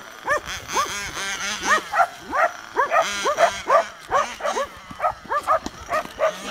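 Dogs barking excitedly in quick succession, about three short yelping barks a second, while chasing a radio-controlled car.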